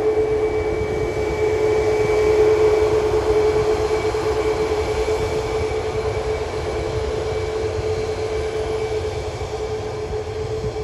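Boeing 737 MAX 8-200's CFM LEAP-1B jet engines at taxi power: a steady whine over a broad rush, slowly fading as the jet taxis away.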